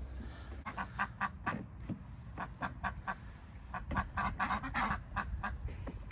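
Ducks quacking in quick runs of short, rapid calls, in about three bursts.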